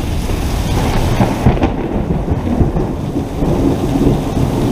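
Heavy rain mixed with hail pouring down onto pavement, a loud, steady hiss with a deep low rumble underneath.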